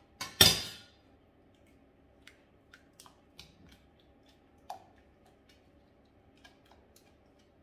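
A sharp metallic clatter of kitchen utensils on a hanging rack, then faint scattered clicks and taps of a spatula scraping pastry cream out of a stainless steel saucepan.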